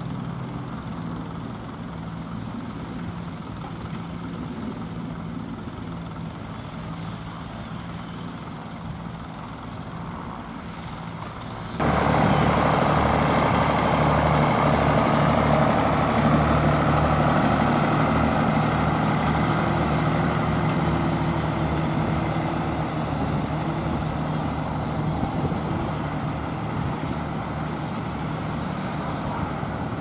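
Vintage tractor engine running steadily under load as it pulls a mounted plough through stubble. About twelve seconds in, the sound cuts suddenly to a second, closer tractor engine that is much louder, also pulling a plough, and fades a little as it moves away.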